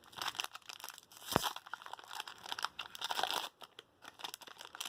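Foil Pokémon TCG booster pack wrapper being torn open and crinkled by hand, an irregular run of crackles with a sharp snap about a second and a half in.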